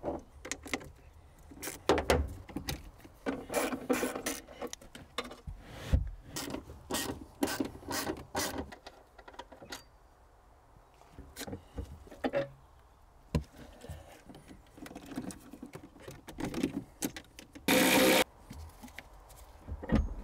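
Hand tools clicking and clinking against the battery terminal clamps and hold-down in a car's boot as a 12 V AGM battery is disconnected for removal. A cordless ratchet whirs loudly for about half a second near the end.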